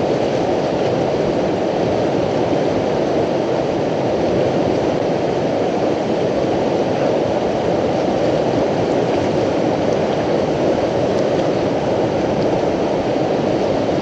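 Whitewater river rapids rushing steadily, a loud, even wash of moving water that does not change.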